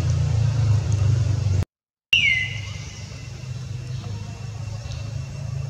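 A mother cat purring while her newborn kittens nurse: a steady, low, pulsing rumble. The sound cuts out for about half a second near two seconds in. It comes back with a brief high tone falling in pitch, and after that the purring runs on more quietly.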